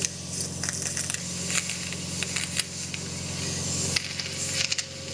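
Medical ear suction: a metal suction cannula drawing debris out of an inflamed ear canal (otitis externa), a steady hiss broken by many small crackles and slurps, over a steady low hum.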